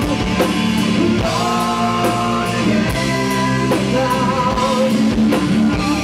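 A rock band playing live: electric guitar and bass guitar, a drum kit with cymbal hits, and a sung vocal with vibrato. A long chord is held through the middle.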